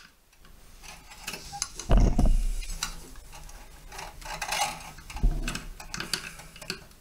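Wire-harness connectors being pushed into the plasma TV's power board: small plastic clicks and cable rustling, with two dull knocks, about two seconds in and just after five seconds.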